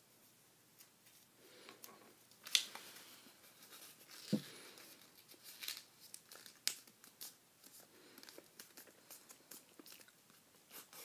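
A sheet of paper being folded and creased by hand: soft, scattered rustling and crinkling, with a few sharper crackles.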